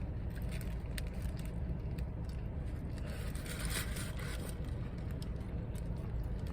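Person chewing food, faint wet mouth clicks and smacks over a steady low hum.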